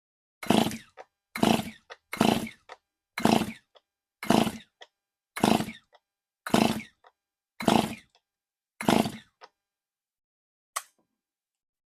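Rebuilt Stihl MS 291 two-stroke chainsaw being pull-started: nine quick yanks on the recoil starter rope, about one a second, the engine turning over but not catching. A single short click near the end.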